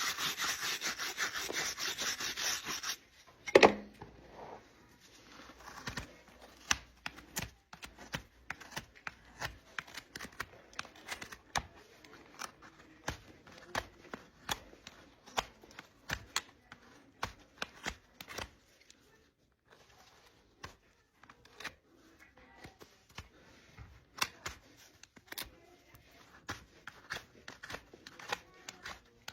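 Hoof trimming on a draft horse's hoof: a few seconds of steady scraping, a sharp knock, then irregular sharp clicks and snips of trimming tools cutting and paring the hoof.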